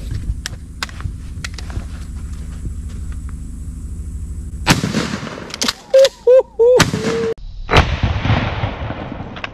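A 12-gauge Remington 870 Express Magnum pump shotgun firing a birdshot load: a sharp blast almost five seconds in, followed by more loud cracks with short pitched sounds, and a second blast near eight seconds that trails off in a long echo. Before the first blast there is a low steady rumble.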